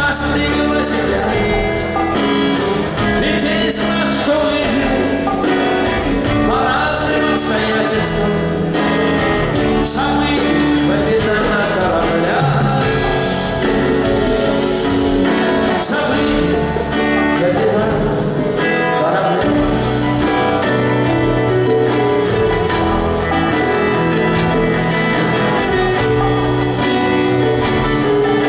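Live rock band playing, with guitars, bass and drums, and a male voice singing over it.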